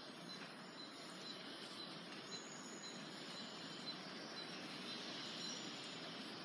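Faint rainforest ambience: a steady hiss of insects, with a soft high chirp repeating about twice a second.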